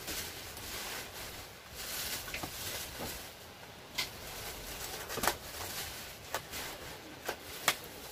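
Rustling of packaging as goods are handled and lifted out of a cardboard box, with several sharp clicks and taps in the second half.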